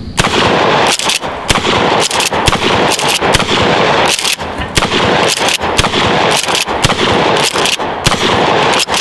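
Mossberg 500 Cruiser 12-gauge pump shotgun fired eight times in quick succession, about one shot a second, with the pump action worked between shots.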